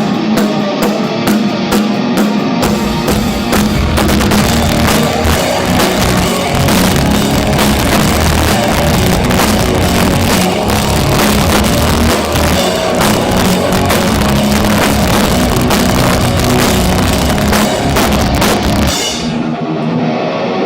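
Heavy rock band playing live through a PA: drum kit with regular cymbal strokes at first, then the full band with guitars and heavy bass comes in a few seconds in, and the playing stops shortly before the end.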